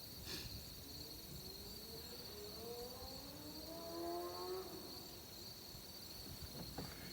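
Insects chirring steadily, with a faint motor sound that rises in pitch over about three seconds and stops about two-thirds of the way through.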